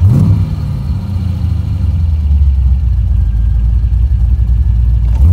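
Chevrolet Monte Carlo SS engine blipped once at the start, revving up and quickly dropping back, then idling steadily at about 800 rpm.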